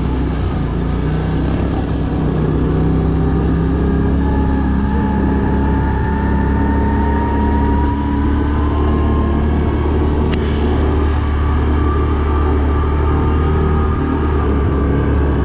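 ATV engine running steadily, its note rising slowly over several seconds in the middle, with one short click about ten seconds in.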